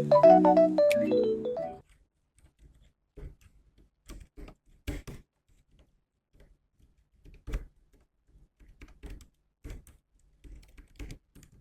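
Electric-piano-style background music ends about two seconds in, then a Keychron keyboard is typed on: sparse, irregular key clicks, a few strokes louder than the rest.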